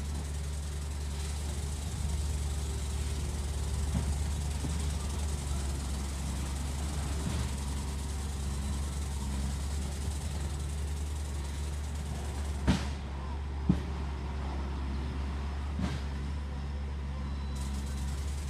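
Construction-site machinery running with a steady low engine hum, broken by three sharp knocks about two-thirds of the way through.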